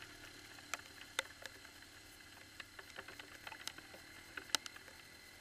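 Quad (ATV) riding slowly through wet mud: a faint, steady engine hum under many scattered, sharp ticks, the loudest about a second in and again after four and a half seconds.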